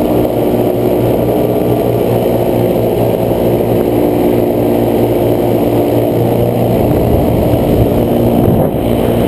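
Paramotor engine and propeller running steadily in flight, a loud, even drone.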